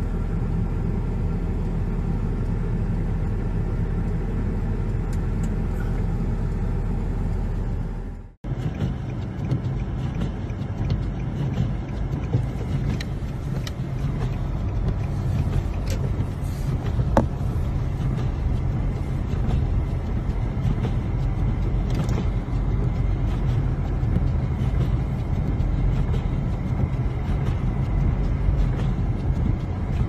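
A snow-clearing vehicle's engine runs steadily, heard from inside its cab as an even low hum. It cuts off abruptly about eight seconds in and gives way to a rougher, noisier rumble of a vehicle driving through the blizzard, with a few sharp clicks.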